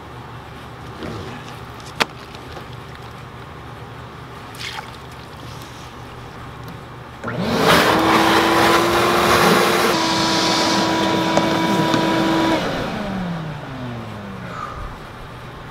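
Orange Ridgid wet/dry shop vacuum switched on about seven seconds in, its motor whining up to speed and running steadily for about five seconds as it sucks water out of the trench through its hose. It is then switched off, and the whine falls away as the motor winds down. A single sharp click is heard earlier.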